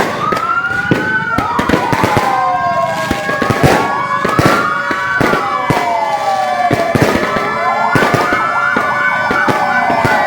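Several fire-engine sirens wailing at once, their slow rising and falling tones overlapping and answering each other, with firecrackers popping throughout. Near the end one siren switches to a fast warble.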